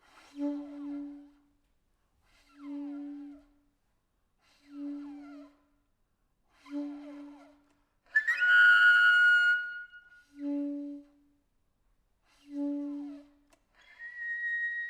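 Solo saxophone playing short low notes about every two seconds, each with faint squiggling overtones above it. About eight seconds in comes one loud, shrill cluster of high notes. Near the end a steady high, whistle-like tone begins.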